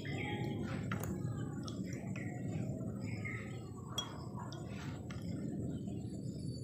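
Quiet outdoor background: a low steady rumble with faint scattered chirps, and two light clicks, one about a second in and one about four seconds in.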